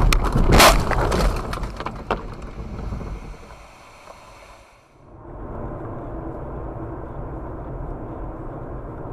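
A burst of loud knocks and clattering in the first two seconds, heard from inside a car, then a steady car-interior rumble of engine and tyres on the road from about five seconds in.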